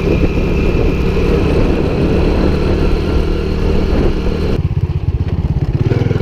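Small motorbike engine running while riding, with wind rushing past. About two-thirds of the way through the sound changes abruptly, and the engine's rapid, even pulsing comes through more clearly.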